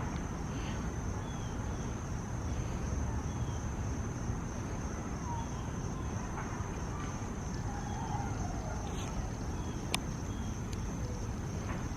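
Outdoor evening ambience: a steady low rumble of noise under a constant thin, high insect drone, with a few faint short chirps scattered through and a single sharp click about ten seconds in.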